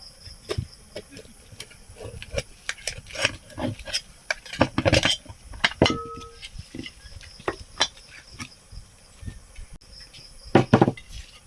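Metal clinks, taps and knocks of tools on a ceiling fan's metal parts as it is taken apart, many irregular strikes. About six seconds in, one strike leaves a metal part ringing briefly with a clear tone, and the loudest knocks come in a quick cluster near the end.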